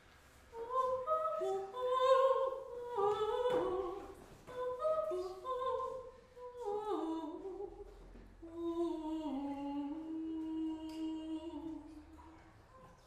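A woman singing unaccompanied in a classical style: a gentle melody in short phrases, ending on one long held low note.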